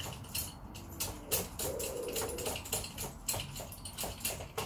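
Clicks and small knocks of two budget camera tripods' heads and centre columns being handled, pressed and wobbled, a rapid irregular run of them.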